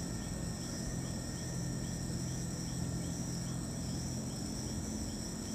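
Night insects, crickets, trilling steadily, with a short chirp repeating about three times a second, over a steady low hum.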